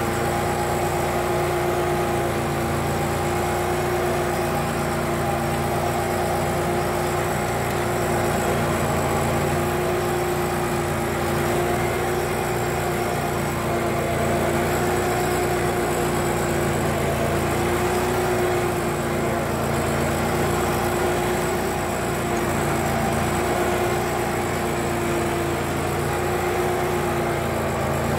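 Kohler 27 hp V-twin gas engine of a Simplicity Legacy 4x4 garden tractor running steadily at an even speed.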